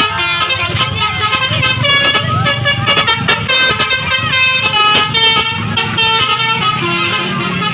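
Telolet bus horn: a bus's multi-tone musical air horn playing a quick tune of stepping notes, with the bus engine running underneath.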